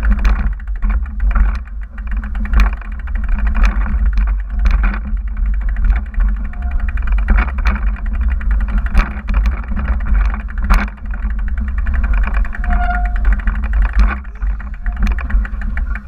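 Mountain bike rolling over rough rock and gravel, the frame, chain and cables rattling and knocking with each bump, over a steady low rumble of wind on the handlebar camera's microphone. A short squeak sounds about six and a half seconds in and again near thirteen seconds.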